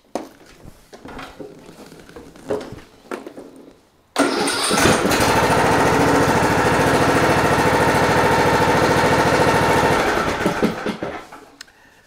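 John Deere D110 lawn tractor engine cranked by the starter and catching about four seconds in, running steadily for several seconds, then switched off and dying away. With the second battery jumped in it turns over and runs, the sign that the tractor's own battery lacks the cold cranking amps to turn the engine over.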